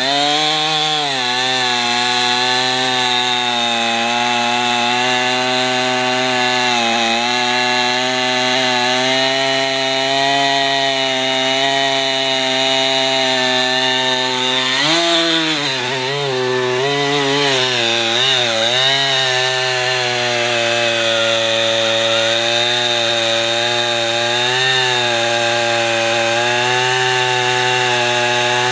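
Husqvarna 460 Rancher two-stroke chainsaw with a 24-inch bar running at full throttle while cutting through solid oak. Its engine pitch dips and wavers for a few seconds about halfway through as the chain loads up in the cut, then holds steady again.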